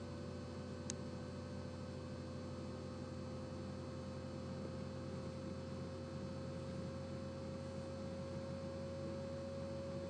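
Steady electrical hum and hiss with a thin tone that slowly rises in pitch, and a brief high blip about a second in.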